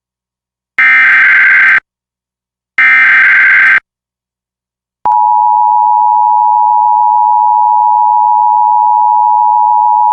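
Emergency Alert System SAME header data bursts: two loud one-second buzzy digital screeches about a second apart, the end of the three-burst header that encodes the alert. About five seconds in, the steady two-tone EAS attention signal begins.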